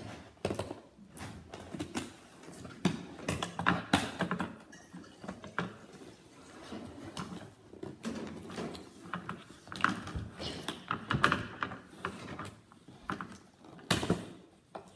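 Irregular clicks, knocks and rustles of a cardboard box and its plastic packaging being handled and opened.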